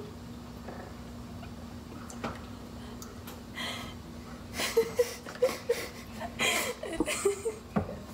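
Stifled laughter: a string of short breathy chuckles and snorts through the second half, over a steady low hum.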